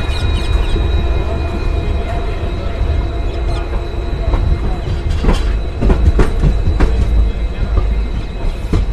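Passenger train running at speed, heard from an open coach door: wheels rumbling on the track with wind buffeting the microphone and a thin, steady high whine. A few sharp clacks from the wheels on the track come about five to seven seconds in.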